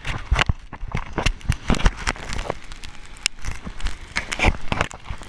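Handling noise on an action camera: fingers rubbing and tapping on its housing, a loud string of irregular clicks and knocks.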